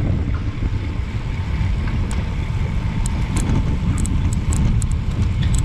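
Wind buffeting the microphone of a handlebar-mounted GoPro on a road bike riding at about 25–30 km/h: a loud, steady low rumble mixed with the hiss of tyres and air. Scattered short sharp ticks come in from about two seconds in.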